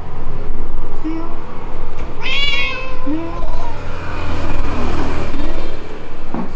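Meowing: a few short, low meows and one louder, higher meow about two seconds in, from a street cat and a man imitating it.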